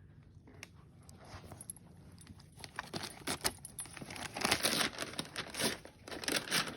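A dog tearing into a birthday present: paper or packaging crinkling, rustling and tearing in quick bursts that grow louder and busier about three seconds in.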